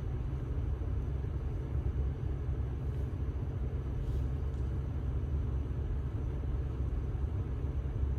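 Toyota Land Cruiser 200's 1VD-FTV V8 turbodiesel idling, a steady low rumble.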